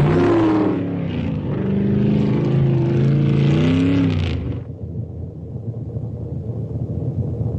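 Car engine being revved, its pitch rising and falling in several blips, then dropping back to a lower, quieter idle rumble about four and a half seconds in.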